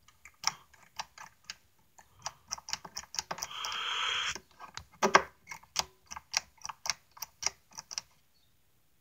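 Irregular clicks and taps from an elevator push-button fixture being handled up close, with a second of rubbing or scraping about three and a half seconds in.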